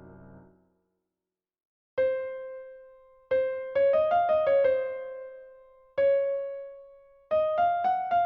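A held keyboard chord fades out, then after a short silence a piano-like keyboard plays a slow melody of single notes, each struck and left to ring down, in short phrases of a few notes.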